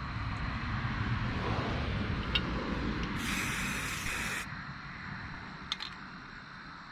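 Aerosol spray can of primer hissing in one burst of about a second, midway through, laying on a light coat. A low rumble runs under the first half, with a couple of faint clicks.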